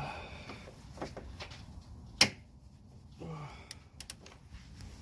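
Scattered metal clicks and knocks of a hand socket wrench working the strut-top nuts of a Mazda 3's front shock, with one sharp, loud clack about two seconds in and lighter clicks around it. A brief grunt-like voice sound comes a little after three seconds.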